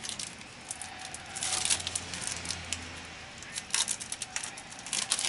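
Trading cards and a foil pack wrapper being handled: short bursts of crinkling and rustling with small clicks, in clusters about a second and a half, nearly four seconds and five seconds in.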